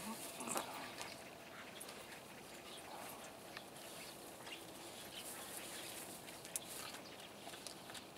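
Dog gnawing a chew treat: faint, scattered clicks and crunches of teeth working on the chew.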